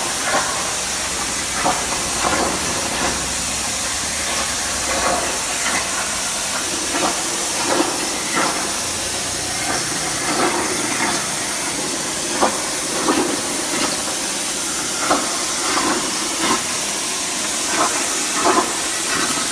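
CNC plasma cutter cutting sheet steel: a loud, steady hiss of the plasma arc and air jet, broken by irregular short crackles.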